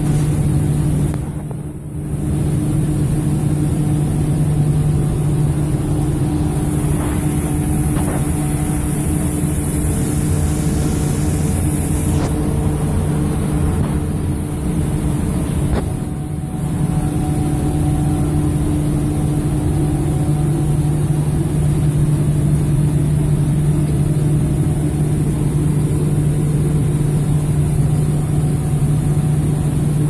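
Centrifugal dust-extractor fan running steadily: a constant low hum over a rush of air through the galvanized ducting and cyclone. The level dips briefly twice, about two seconds in and near the middle.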